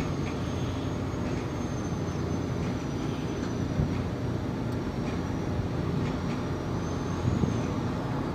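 Sightseeing boat's engine running steadily: an even low rumble with a faint high whine that wavers slightly in pitch.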